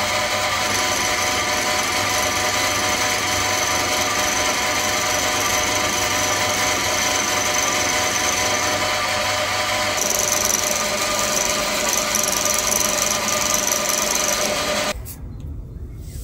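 Vertical milling machine running, its end mill taking a cut along the side of a metal valve-chest block held in a vise: a steady motor and spindle whine with cutting noise over it. The sound drops away sharply near the end.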